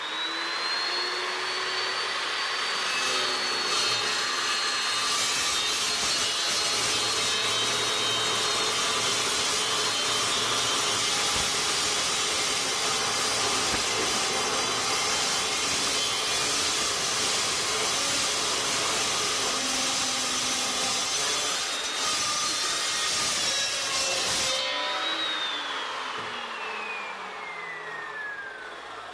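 Evolution 14-inch carbide-tipped chop saw spinning up with a rising whine, then cutting through a clamped bundle of six steel pipes, loud and steady. After about 25 seconds the blade clears the cut and the motor is let go, its whine falling steadily as the blade coasts down.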